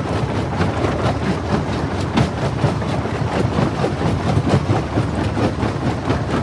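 Jaw crusher running under load: a steady low rumble with constant irregular cracking and knocking of stone being broken between the jaws, and one sharper crack about two seconds in.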